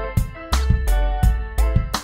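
Instrumental music with a steady drum beat, deep bass and pitched melodic notes.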